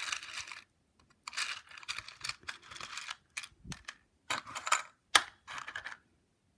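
Small hard jewelry pieces and beads clicking and rattling together as they are picked through by hand, a string of sharp clicks and short rattles that stops abruptly about six seconds in.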